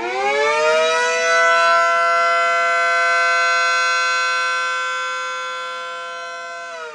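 3D-printed model of an ACA Allertor 125 siren sounding: it winds up quickly to a steady pitch, holds it for several seconds, and starts to wind down near the end, as in a wail signal. Its volume swells early on and then slowly fades.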